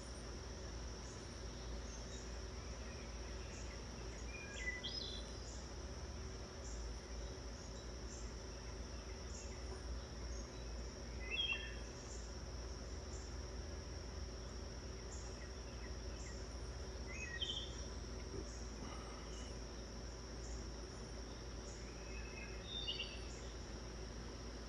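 Insects singing in a steady high trill, with a short bird call of a few notes four times, about six seconds apart.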